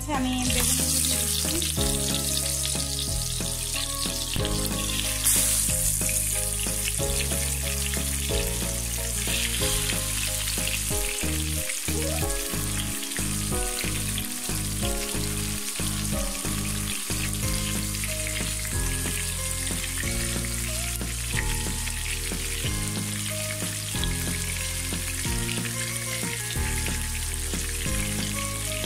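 Spice-coated eggplant slices sizzling as they shallow-fry in about half a cup of hot oil in a pan. The sizzle flares as a slice goes into the oil at the start and again about five seconds in, then settles to a steady frying hiss.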